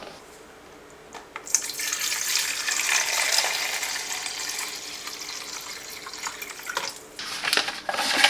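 Water running in a steady stream for about five seconds, then tapering off, with a few light handling clicks near the end.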